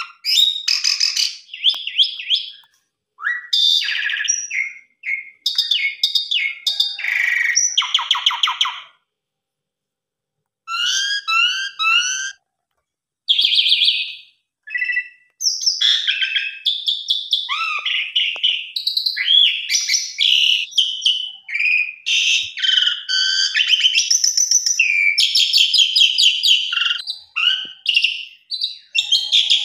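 Asian pied myna (jalak suren) singing a long, varied song of clear whistles, gliding notes and rattling chatter in quick phrases, with a pause of about a second twice near the middle. The song is of the kind stocked with mimicked phrases of other birds (isian).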